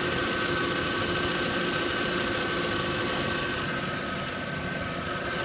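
VW 1.8T turbocharged four-cylinder engine idling steadily, heard from the timing belt side. The owner hears no noise that would point to a failing timing belt tensioner.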